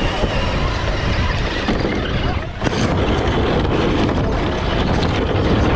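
Onboard sound of a scale RC crawler climbing a loose dirt hill: a steady, rough, loud rumble of its drivetrain and tyres scrabbling in the dirt, with a short dip about two and a half seconds in as the truck tips over.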